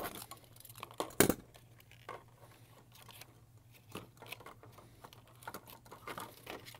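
Cardboard toy packaging and its plastic being handled and pulled at: irregular crinkling and small clicks, with one sharper knock just over a second in, as a toy strapped tightly into its insert is worked loose.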